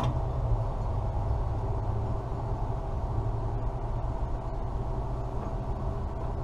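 Steady low machine hum with a faint rumble, with no welding crackle over it.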